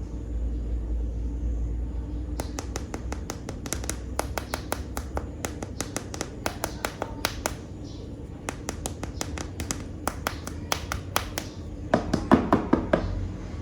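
Animal toy figures being handled, making a long run of quick, sharp clicks and taps that starts a couple of seconds in. A louder cluster of knocks with a short ring comes near the end.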